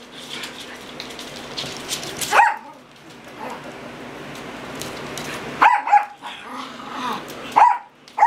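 Silky Terriers barking at play: short, high-pitched barks, one about two seconds in and then several more, closer together, near the end.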